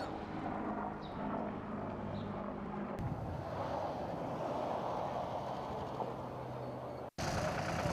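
An engine running with a steady hum. About three seconds in, an edit cuts it to a steady rushing noise, and a brief dropout near the end marks another cut.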